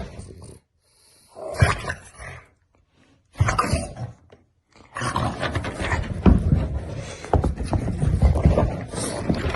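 French bulldog growling and snarling in protest. It comes in short bursts at first, then keeps up without a break from about five seconds in.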